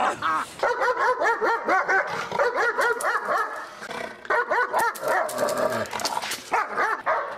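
German shepherd barking aggressively, a rapid run of barks several a second, with a short lull about halfway through.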